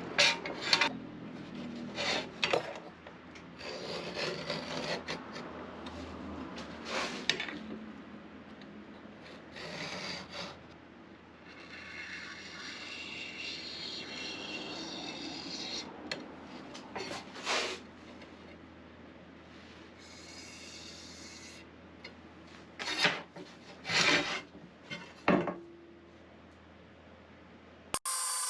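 Steel plate being worked by hand: irregular short scraping strokes with longer stretches of scraping, and a few sharp knocks.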